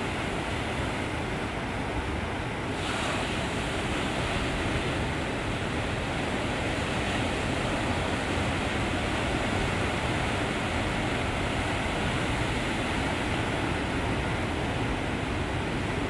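Ocean surf breaking: a steady rush of large waves. About three seconds in, a brighter, hissier wash comes in and stays.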